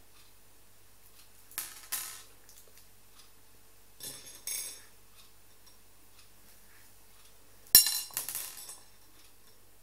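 Small pearl beads clicking and rattling against a hard plate as fingers pick through them. It comes in three short bursts, the loudest near the end.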